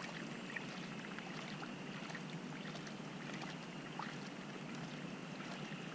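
Steady, even background noise with a few faint clicks.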